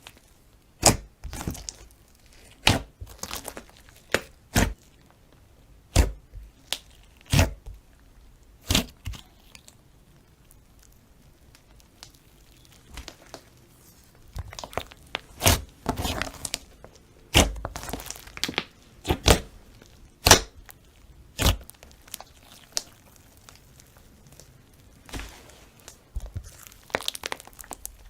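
Slime worked by hand, giving sharp pops and crackles about once a second, with a quiet stretch around ten seconds in and a denser run of pops after it.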